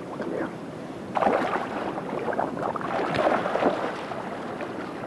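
Water splashing and sloshing in irregular bursts, as of feet wading through shallow water, strongest in the middle stretch.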